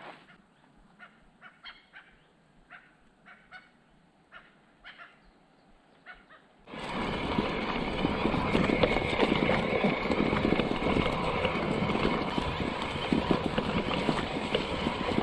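Mountain bike riding over an overgrown railway track: tyres rolling through grass and over the old sleepers, with constant rattling and bumping. The riding noise starts suddenly about seven seconds in, after a quiet stretch of scattered faint clicks.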